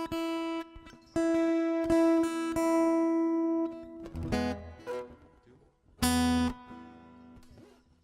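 Guitar: one note plucked four or five times and left ringing, then a few chords strummed in the second half.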